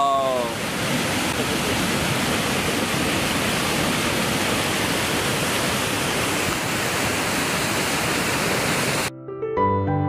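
A waterfall's white water rushing over rocks, a loud steady rush. About nine seconds in it cuts off abruptly and soft piano-like music begins.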